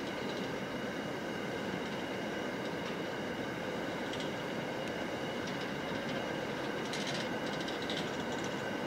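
Hopper wagons of a long freight train rolling past at a distance: a steady rumble of wheels on rail, with brief high-pitched metallic squeals about four and seven seconds in.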